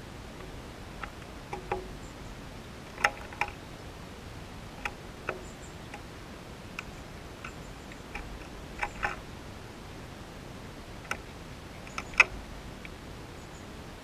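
A sparrow pecking at seed on the rim of a bird bath: about a dozen short, sharp ticks at uneven intervals, some in quick pairs, over a steady outdoor hiss.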